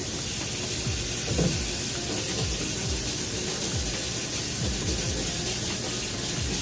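Kitchen faucet running a steady stream of hot water over bottles to loosen the adhesive of old labels.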